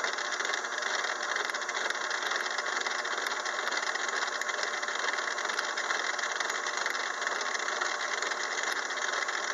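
6-inch Craftsman lathe running a gear cutter through a 24-tooth gear blank under power cross feed: a steady, even machining noise of the spinning spindle and cutter chewing through the metal, with the cutter fully engaged in the blank.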